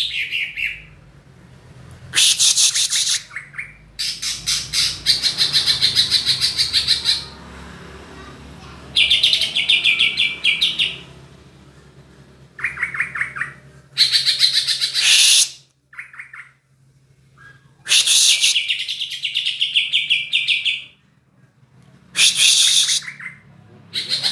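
Songbird singing in repeated bursts of fast chattering trills, each a second or three long with short pauses between. It is a lure song for getting a reluctant greater green leafbird to sing.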